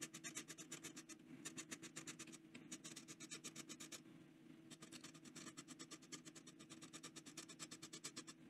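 Faint, quick, rhythmic scratching of a Leonardo Momento Zero steel nib's tipping rubbed back and forth on wet 1800-grit micro-mesh, several strokes a second. It is the coarse grit grinding off the nib's 'baby's bottom', the rounded, over-polished tip.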